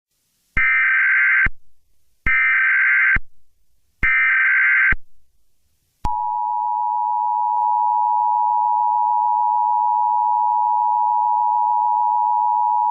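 Emergency Alert System alert tones: three buzzy SAME digital header bursts, each about a second long, then, about six seconds in, the steady two-tone EAS attention signal (853 and 960 Hz sounded together).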